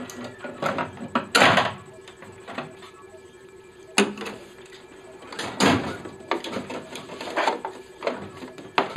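Clunks, clicks and rattles of a photocopier's casing and parts being handled and worked on, with a louder scraping clatter about a second and a half in and sharp knocks at about four and five and a half seconds. A faint steady hum runs underneath.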